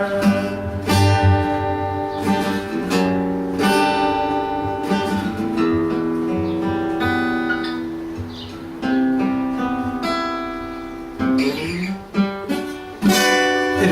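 Two guitars strumming chords in the closing instrumental bars of a song, with a last strong strummed chord near the end.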